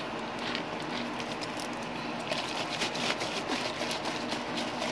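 Plastic bottle of thick pink lotion mixture being handled and moved about, giving scattered light clicks and taps, thickest in the middle, over a steady background hum.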